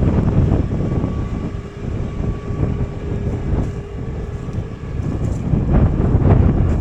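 Wind buffeting the microphone in uneven gusts, over the steady hum of a John Deere 8345RT tractor's engine running.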